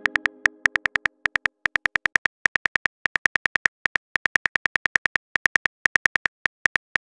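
Phone on-screen keyboard typing clicks: a fast, uneven run of short, high, pitched ticks, about six or seven a second, as a message is typed. A chime from just before fades out during the first second or so.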